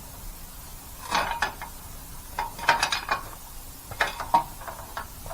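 Metal tools and hardware clanking and clinking as they are handled, in three short clusters of sharp knocks with brief ringing, about a second and a half apart.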